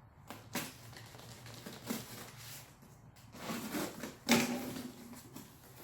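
A cardboard package being opened and unpacked: rustling and handling noises with scattered clicks, and one sharp knock a little past four seconds in, the loudest sound.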